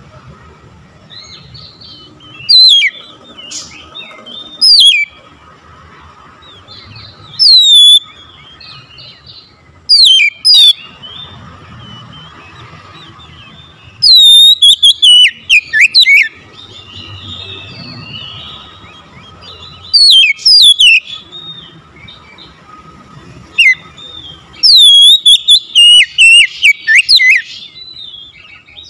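Oriental magpie-robin singing loud phrases of sharp, downward-sweeping whistles, spaced a few seconds apart. Near the end the phrases come in a fast run lasting several seconds. A faint steady hum runs underneath.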